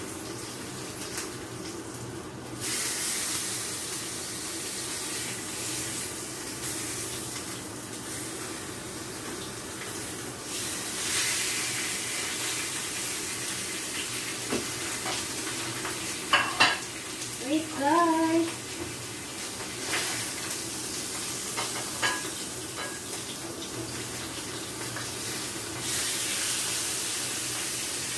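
Oil sizzling steadily in a frying pan on a gas stove, the hiss swelling now and then, with a few sharp clicks and knocks of utensils and one brief vocal sound midway.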